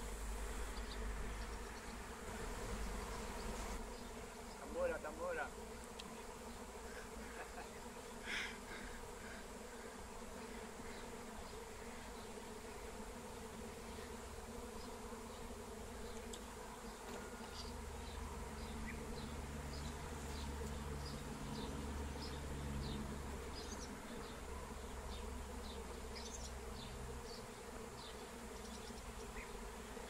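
A swarm of honey bees in flight overhead: a steady buzzing hum of many wings.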